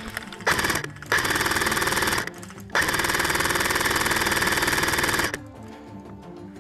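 Airsoft MP5 firing on full auto in three sustained bursts: a short one, then one of about a second, then one of about two and a half seconds. Each burst is a fast, even rattle of shots, laid down as heavy suppressive fire.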